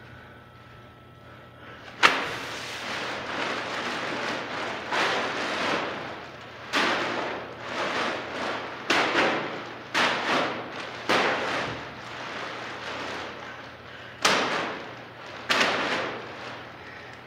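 Clay-filled plastic trash bags thudding down and scraping on a concrete floor, the plastic rustling and crinkling after each hit. About eight hits, the first, about two seconds in, the loudest.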